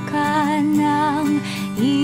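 Background music: a song with a voice singing held, wavering notes over steady instrumental backing.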